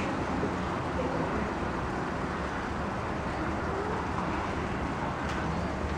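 Steady low rumble of distant traffic and outdoor background noise.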